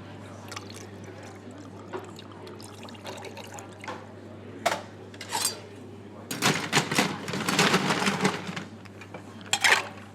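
Bartender at work making a cocktail: a few short glass-and-metal clinks and pouring, then about two seconds of dense rapid rattling and clattering around six seconds in, with another clink near the end, over a steady low hum.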